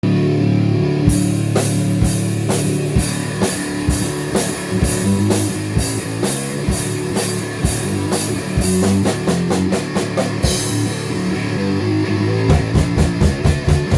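Heavy rock music with a full drum kit and guitar: steady drum beats under sustained low chords, cymbals coming in about a second in, and fast drum fills partway through and near the end.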